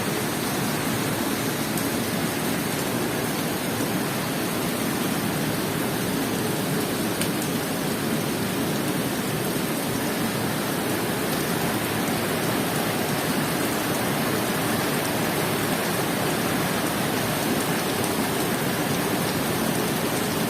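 Heavy rain falling: a steady, even rush of noise that does not let up.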